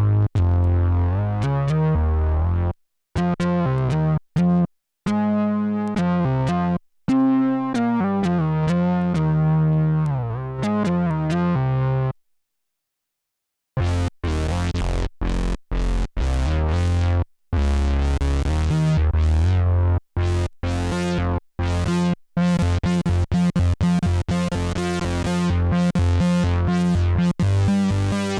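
Fender Jazz Bass played through an Electro-Harmonix Bass Mono Synth pedal, recorded direct: a synth-bass riff of low notes with short breaks, including a pitch glide downward about seven seconds in. It stops for about a second and a half around the middle, then comes back as a run of short, choppy notes.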